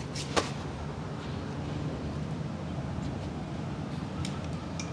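A sharp click about half a second in and a few faint ticks near the end, over a steady low rumble.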